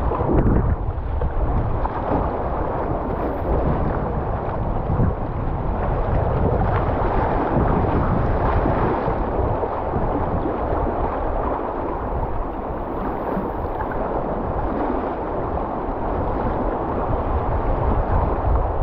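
Whitewater rapids rushing and splashing around a kayak as it runs a fast river, a steady loud churning with a heavy low rumble.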